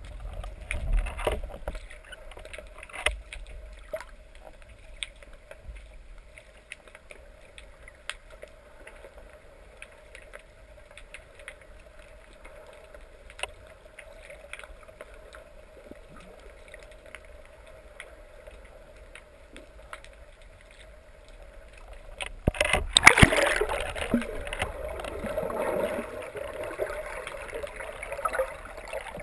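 Underwater sound through the housing of a speargun-mounted camera: a low water background with scattered faint clicks and a steady faint hum. About 22 seconds in, a sudden loud rush of churning water and bubbles sets in and lasts several seconds.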